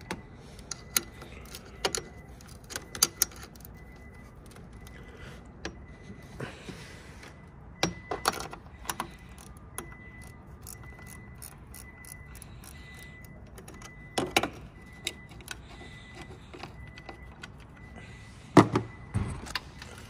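Scattered metallic clicks and clinks of a 10 mm wrench loosening the clamp on a car battery's negative terminal, with a louder clank near the end.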